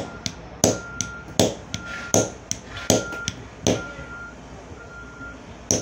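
Hammer blows on a hand-held metal punch, cutting a ring gasket out of motorcycle tire rubber on a wooden bench. Six sharp strikes come about one every three-quarters of a second, then a pause of about two seconds before one more near the end.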